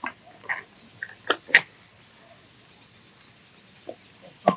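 Birds calling: several short calls in the first second and a half, then faint high chirps.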